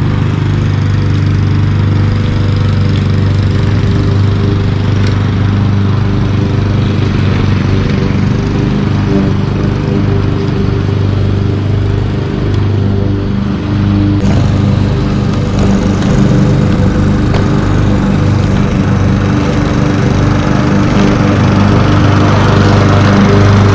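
Walk-behind gas lawn mower engine running steadily as it cuts grass, growing a little louder near the end as the mower comes closer.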